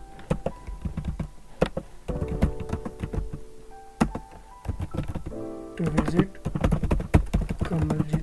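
Computer keyboard typing: a quick, uneven run of keystroke clicks, over background music with held notes.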